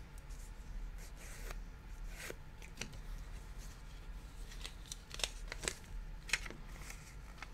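A stack of football trading cards being handled and squared up in the hands: soft sliding rustles and a scatter of light card clicks, with a few sharper clicks after about five seconds.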